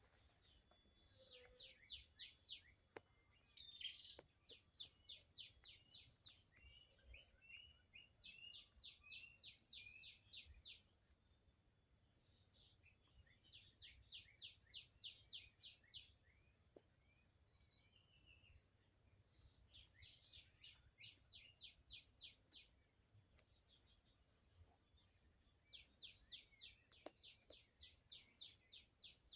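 Faint wild birdsong: one bird repeats a fast run of short, high downward-slurred notes lasting about two seconds, six times with pauses between, and other birds give scattered single chirps.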